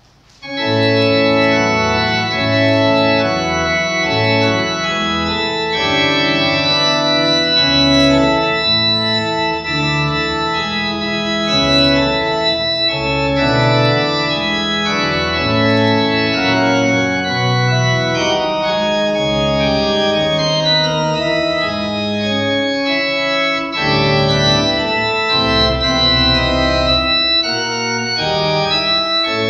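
Organ playing loud, full sustained chords that change steadily, starting abruptly about half a second in: the postlude after the dismissal that closes the service.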